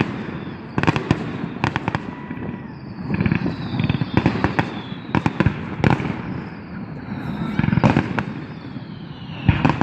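Fireworks and firecrackers going off: an irregular string of sharp bangs and pops, often several in quick succession, over a background rumble of more distant blasts.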